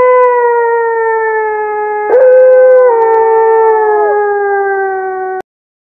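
Canine howl played as the fox's call: a long, steady howl that slides slowly down in pitch. A second howl starts about two seconds in and cuts off abruptly near the end.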